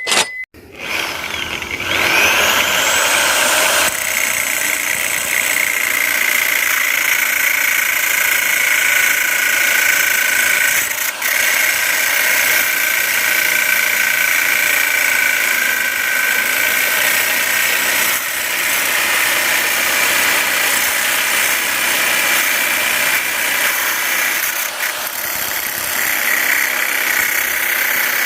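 Electric drill motor starting up about two seconds in, its whine rising in pitch and then running steadily at full speed.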